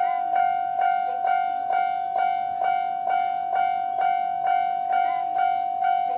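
Japanese railway level-crossing alarm sounding its standard electronic bell: a steady ringing tone struck again about twice a second.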